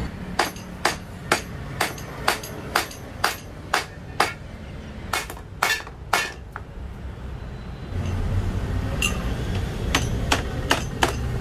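Hammer tapping the corner joint of a brown metal mosquito-door frame together: a steady run of about a dozen sharp metallic knocks, roughly two a second, then a pause and a few quicker taps near the end.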